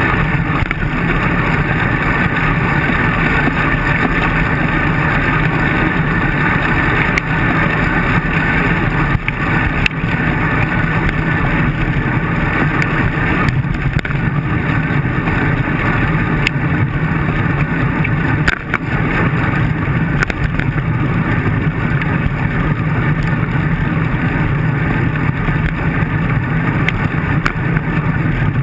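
Steady rush of wind and road rumble picked up by a handlebar-mounted action camera on a moving road bike over rough pavement, with a few brief knocks from bumps in the road.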